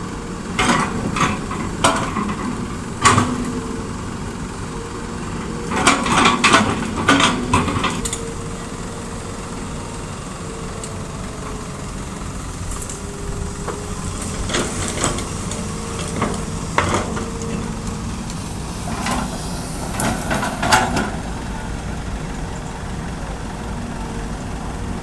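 Heavy diesel engine of a Hitachi excavator running steadily with a held hum. Four bursts of sharp clanks and knocks break the hum: the bucket working hard soil and loading it into a dump truck.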